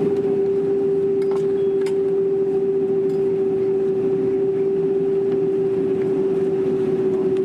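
Steady cabin noise inside a Boeing 767 taxiing after landing: a low rush with one strong, steady mid-pitched tone. There are a few faint clicks in the first couple of seconds.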